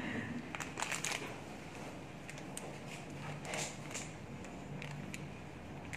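Makeup tools and cases being handled: scattered faint light clicks and taps over a low steady hum.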